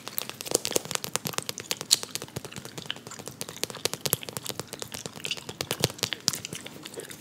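Close-miked clicking, tapping and crackling as long acrylic nails handle a small plastic toy: many quick irregular clicks with no tone.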